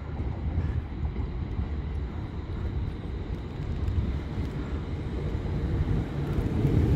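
Low rumble of a train at a station, slowly growing louder.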